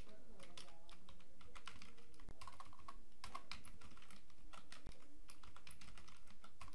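Typing on a computer keyboard: a run of irregular keystrokes.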